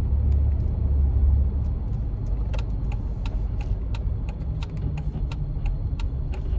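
Car cabin noise while driving: a steady low rumble from the engine and road. About two and a half seconds in, a regular ticking starts, about three ticks a second.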